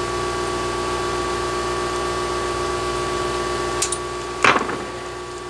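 Steady machine hum, like a fan or motor running in a small workshop. About four seconds in, a small cutter clicks at a wire, followed by a short rustle of handling, and the hum drops a little after it.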